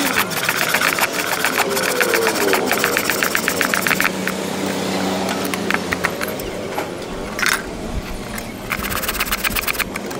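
Hacksaw rasping back and forth through metal clamped in a bench vise, with rapid strokes through the first few seconds and again near the end. An engine runs in the background, its pitch gliding up and down.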